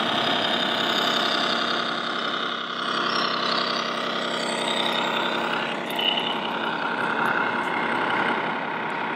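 Simulated diesel truck engine running steadily from a model truck's electronic sound module, over the steady hubbub of a busy exhibition hall.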